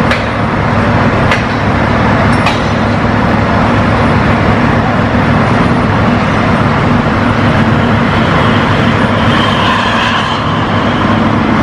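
Track-laying machine's engine running steadily with a loud low drone, with a few sharp metallic clicks in the first few seconds and again near the end.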